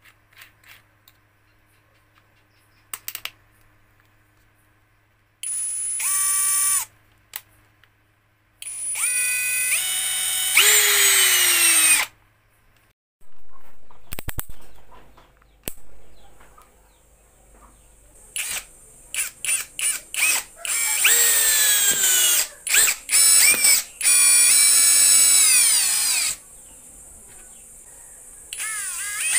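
INGCO 20V brushless cordless drill motor running in repeated bursts, its whine rising as it spins up and falling as it winds down. About two-thirds through comes a run of quick short trigger pulls, then longer runs; a few clicks sound near the middle.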